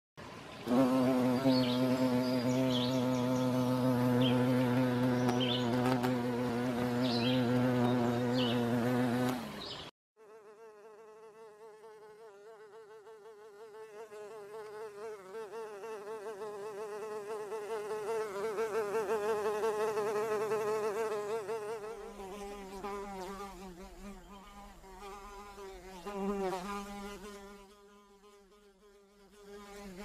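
Flying insect buzzing. A loud, steady, low buzz stops abruptly about ten seconds in. A housefly's quieter, higher, wavering buzz follows, swelling and then fading.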